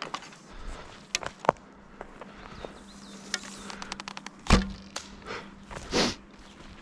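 A bow shot: one loud, sharp thump of the bowstring being released about two-thirds in. Before it come light clicks and a quick run of fine ticks from handling the bow and arrow, and near the end a short rush of breathy noise.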